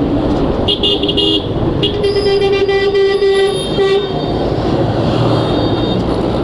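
A vehicle horn honks in heavy traffic: a short blast, then a longer one of about two seconds, over steady traffic and engine noise.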